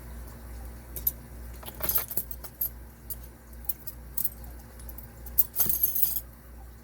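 Light metallic clicks and rattles from small metal padlock parts and tools being handled, in two brief clusters about two seconds in and near the end.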